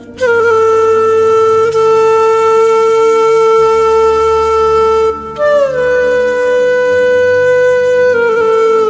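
Background music: a solo flute-like wind instrument playing two long held notes, the second sliding down into place about five and a half seconds in, over a soft low drone.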